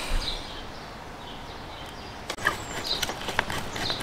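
Light handling clicks and taps of a hex driver and small metal screws against an RC buggy's chassis while engine mount screws are fitted. There is a soft knock at the start, then a handful of sharp clicks in the second half.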